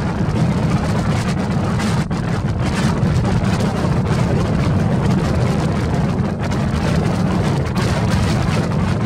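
Strong north wind buffeting the microphone: a loud, steady low rumble with a hiss above it, flickering without a break.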